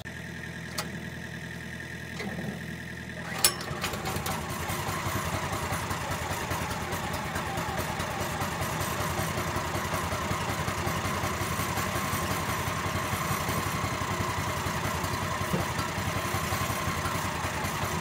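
Small gasoline engine of a Woodland Mills HM130 portable bandsaw sawmill starting: it catches about three and a half seconds in, then runs steadily as it warms up.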